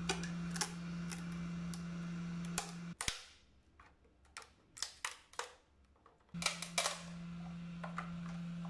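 Sharp plastic clicks, snaps and scraping as a cracked turn signal lamp housing is handled and picked apart by hand, over a steady low hum that stops about three seconds in and returns about three seconds later.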